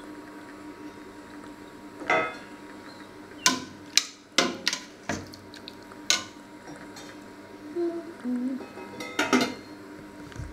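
Lid of a stainless steel cooking pot lifted off and put back on, with a metal ladle clinking against the pot in between as vegetables are stirred: a string of separate metallic clanks and clinks.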